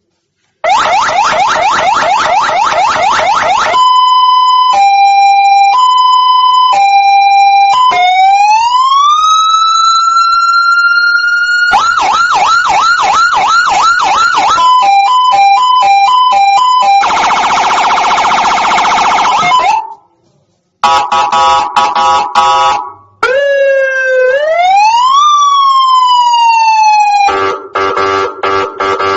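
CJB200W 200-watt electronic police siren stepping through its tones, each lasting a few seconds. It opens with a fast repeating yelp, then a two-note high–low, a slow wail rising to a held high pitch, and a fast warble. After that come rapid alternating notes, a harsh buzzing tone, a brief break, a stuttering tone, a sweep up and down, and a final pulsing tone.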